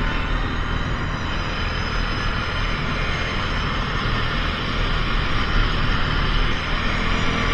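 ATV riding steadily along a dirt trail: the engine running with tyre and wind noise as a constant rushing hiss, with no sudden knocks or changes.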